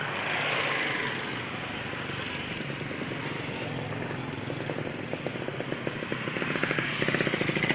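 Motorcycle engine running while riding along a road, over steady road and wind noise; its rapid, even pulsing grows louder in the second half.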